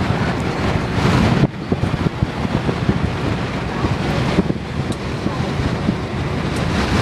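Road and wind noise inside a moving vehicle on the highway: a steady rushing hiss over a low rumble, which drops back abruptly about a second and a half in.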